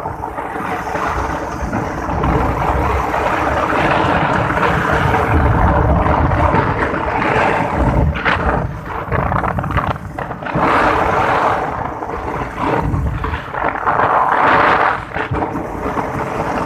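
Wind rushing and buffeting over a phone's microphone on a moving motorcycle, swelling in gusts, with the motorcycle's engine running steadily underneath.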